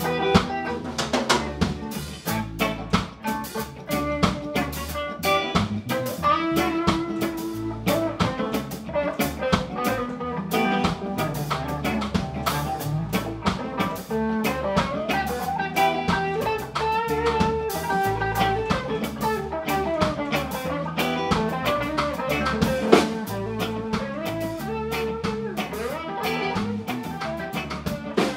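Live band playing an instrumental passage, with no singing: electric guitar lines with bent notes over a drum kit with rimshots and deep bass notes.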